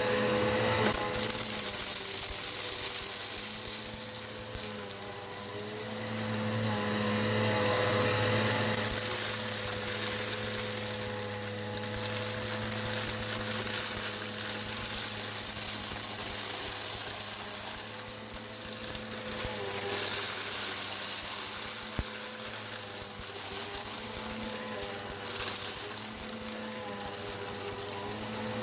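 Eureka PowerSpeed vacuum cleaner running steadily and sucking up rock salt and lentils, its motor hum holding one pitch while the overall level swells and dips.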